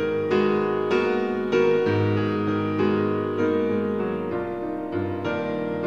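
Instrumental background music led by piano, with a new note or chord struck about every half second to a second.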